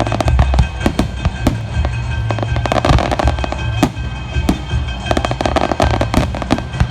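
Fireworks going off in rapid succession, with many sharp bangs and crackles, over music playing throughout.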